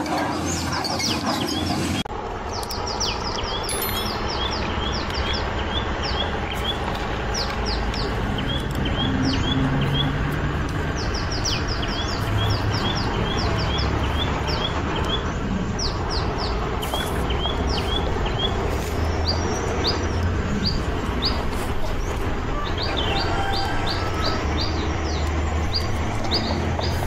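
Small birds chirping in quick, high, repeated chirps over a steady background hiss.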